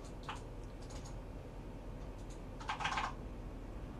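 Computer keyboard keystrokes: a few scattered key clicks, then a short run of several keys about three seconds in, over a low steady hum.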